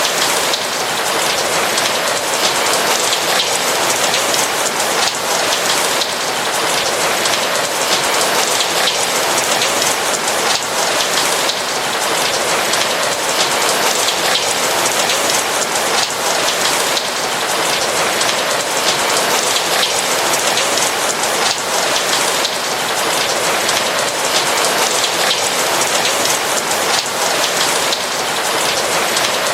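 Steady rain falling on a roof, an even wash of rainfall with scattered individual drops ticking.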